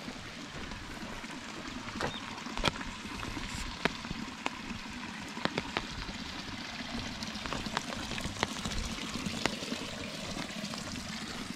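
Steady rain hissing, with irregular sharp taps of drops landing on an umbrella overhead.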